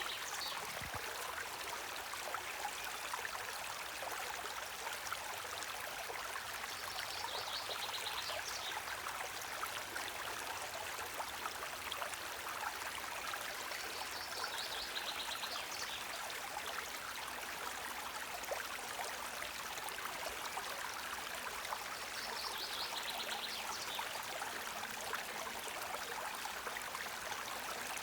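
Forest stream running steadily, water trickling and splashing. A short high trill comes three times, about every seven or eight seconds.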